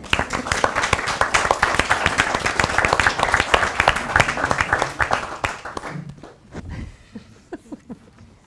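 A small group applauding: many hands clapping quickly and densely, dying away after about six seconds.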